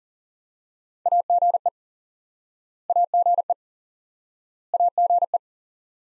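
Morse code tone sending the abbreviation AGE (dot-dash, dash-dash-dot, dot) at 40 words per minute, three times. Each run of crisp single-pitch beeps lasts well under a second, with about two seconds between runs.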